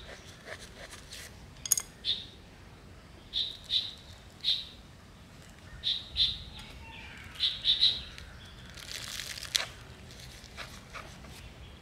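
Small bird chirping: short, high chirps, often in pairs, repeating every second or so. About nine seconds in comes a brief rustle of handling noise.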